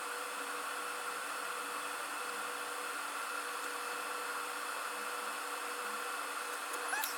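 Steady hiss and hum of a small electric blower at a soldering bench, running evenly with a few constant tones in it and a faint tick or two near the end.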